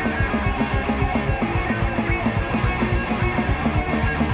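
Instrumental passage of a 1990s rock band demo recording: guitars and bass over a drum kit, with a steady cymbal beat of about four strokes a second.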